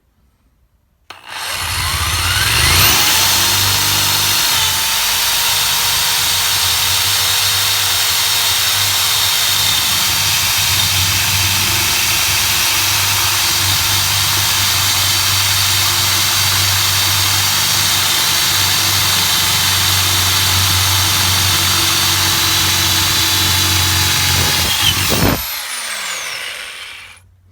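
Electric drill spinning up and boring a pilot hole through the van's floor, running steadily under load for more than twenty seconds, then winding down and stopping near the end. The long run reflects a hard floor to get through.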